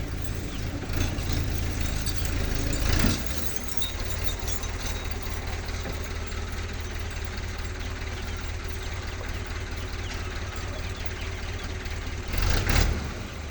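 A motor running steadily with a low hum, swelling louder briefly about three seconds in and again near the end.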